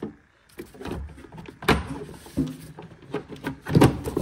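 Plastic engine cover of a 2011 Chevy Equinox being pulled up off its mounts at the corners and lifted away: a run of plastic clicks, knocks and scrapes, with a louder pop near the middle and another near the end.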